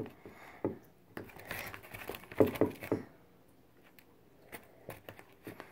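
Homemade slime being stirred and handled in a bowl: scattered clicks and knocks with short sticky, rustling patches. There is a quiet stretch of about a second and a half near the middle.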